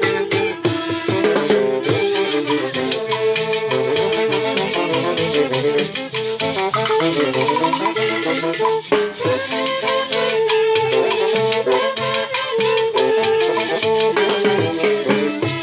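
A live band plays a lively dance tune on saxophones, clarinet, trumpet and Andean harp. Timbales, a cymbal and a metal shaker keep a steady beat under the melody.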